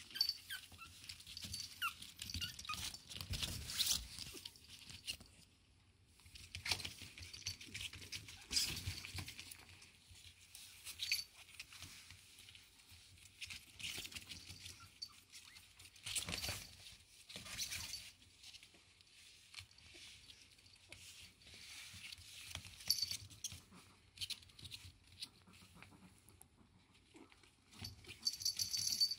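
Long-coat chihuahua puppies playing: paws scrabbling and rustling on a nylon mat, in irregular spells of scratchy noise, with brief high squeaks now and then.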